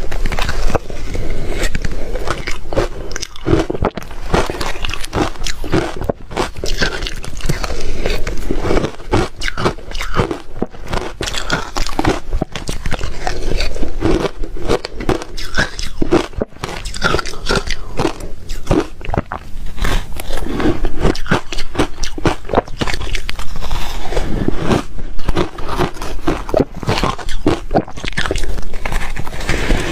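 Ice being bitten and chewed, a continuous run of sharp crunches and crackles.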